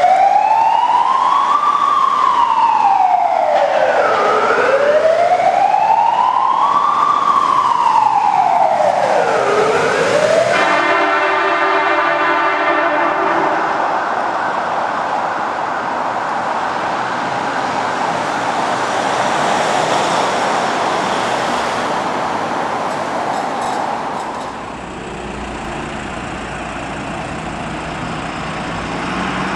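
Fire truck siren in a slow wail, sweeping up and down in two cycles of about five seconds each, cut off about ten seconds in. Then a steady horn note for a few seconds, followed by emergency-vehicle and street noise. Near the end, an engine rises in pitch as a vehicle accelerates.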